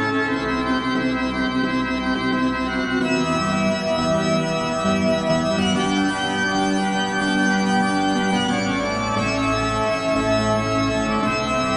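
Background music of sustained organ-like keyboard chords, each held for a few seconds before changing to the next.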